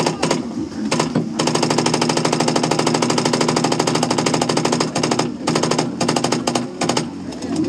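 Tippmann paintball marker firing from the turret: a few single shots, then a long, very rapid stream of shots lasting about three and a half seconds, then several short bursts near the end.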